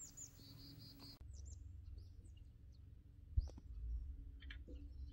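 Small birds chirping faintly outdoors: a falling chirp and a quick run of four short notes at the start, then scattered chirps. A low rumble comes in about a second in, and there is a single thump about three and a half seconds in.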